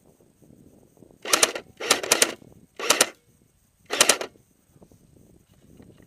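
Airsoft electric gun, a JG AK-47S replica, firing four short bursts of full-auto within about three seconds.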